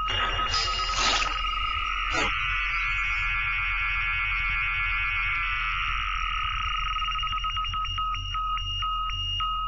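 Synthesized electronic sound effects: steady high beeping tones, a whoosh about half a second in and a sharp hit about two seconds in, then a dense warbling cluster of high tones that breaks up into rapid pips.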